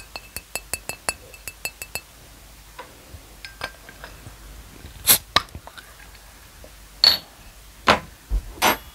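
Small glass mineral-water bottle tapped and handled, a quick run of about eight short clinks over the first two seconds. Then its cap is worked open with a small opener: a few separate sharp clicks and snaps, the loudest about five seconds in and several more near the end.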